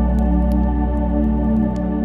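Ambient music of sustained, organ-like held chords, with fire crackles as scattered sharp clicks a few times a second.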